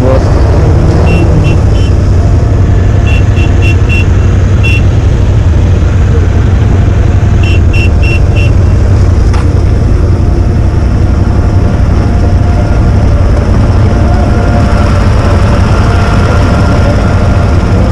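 Motorcycle engine running at low speed in slow traffic, a steady heavy low rumble. Over it come short high-pitched beeps in quick clusters of three to five, three times in the first half.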